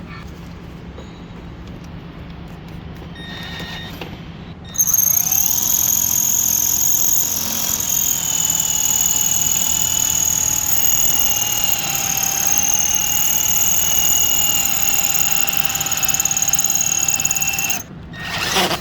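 Electric drill with a 5/16 in bit boring out the hole of a battery cable terminal end: a steady high whine with a squeal of the bit cutting metal. It starts about five seconds in, rises briefly, runs for about thirteen seconds, and stops near the end.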